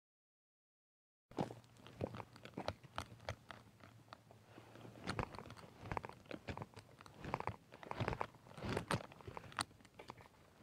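Starting about a second in, irregular clicks, knocks and scuffs of footsteps on dry dirt and leaves and of gloved hands handling a helmet-mounted camera and motorcycle as the rider gets on; the engine is not running.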